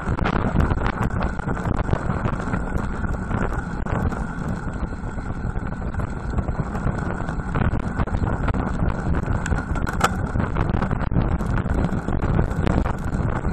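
Steady wind buffeting the microphone of a cheap bullet action camera mounted on a moving road bicycle, mixed with low road rumble.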